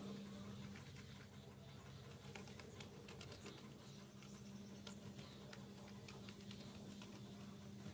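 Faint, irregular soft taps and scratches of a bristle paintbrush dabbing resin into fiberglass mat, with a steady low hum underneath.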